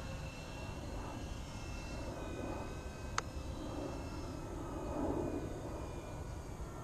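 Radio-controlled model airplane's engine running in the distance, a thin steady whine that steps down in pitch a couple of times, over wind rumble on the microphone. A single sharp click about three seconds in.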